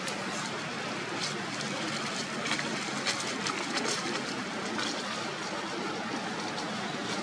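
Steady rushing outdoor background noise, with scattered short dry crackles of leaf litter being handled.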